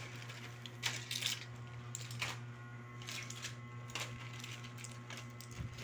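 A few light clicks and knocks from objects being handled and put away, scattered over a steady low hum.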